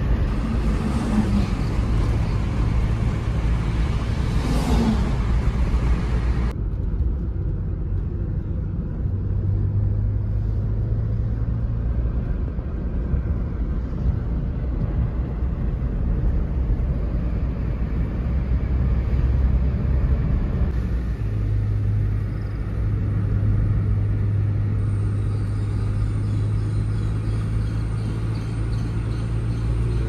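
Car interior noise while driving: a steady low rumble of engine and tyres on the road, with an airy hiss that drops away abruptly about six seconds in.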